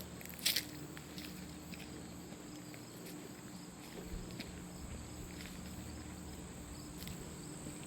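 Footsteps walking, with a sharp tap about half a second in, over a steady high-pitched trill of crickets or other insects.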